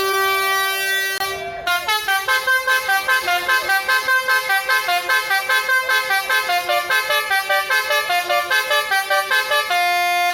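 Tour bus's basuri telolet multi-tone horn playing a tune. It holds notes for the first couple of seconds, then plays quick notes of changing pitch at about five a second, and ends on a long held note that cuts off suddenly.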